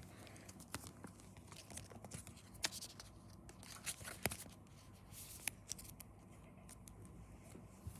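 Faint handling of Pokémon trading cards and clear plastic card sleeves: light rustling with a few scattered soft clicks and taps.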